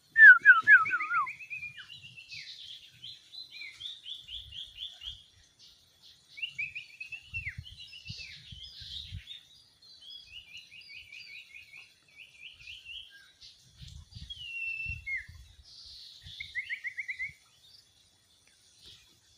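Wild sirtu birds singing: phrase after phrase of quick, evenly spaced chirped notes, some runs falling in pitch, with more than one bird trading phrases. The loudest phrase comes right at the start. A few faint low thumps sound beneath the song.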